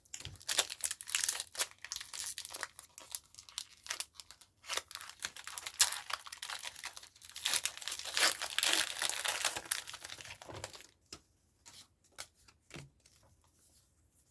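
Foil Pokémon booster pack wrapper being torn open and crinkled: a dense crackling for about eleven seconds, then a few scattered light clicks.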